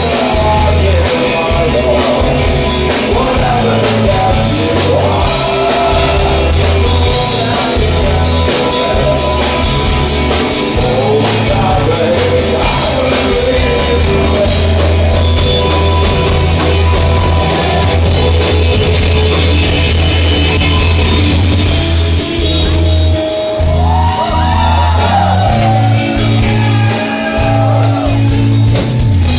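Live dream pop band playing a song, a singer's voice over sustained bass notes and the full band. The singing drops out for several seconds in the middle, then returns.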